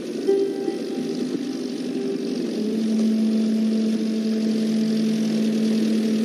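Engine of an old car running as it drives up and comes to a stop, settling into a steady idling hum a little under halfway in and growing slightly louder.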